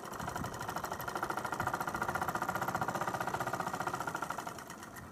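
Sewing machine running a test seam with a fast, even clatter of stitches. It picks up speed about a second in, then slows and stops near the end. The machine has just had the loose tension screw on its bobbin case tightened, and it now sews proper stitches.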